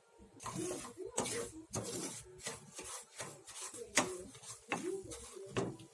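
Steel spoon stirring and scraping semolina around a pan as it roasts in a little ghee: a run of irregular gritty rasping strokes, with a sharper knock about four seconds in.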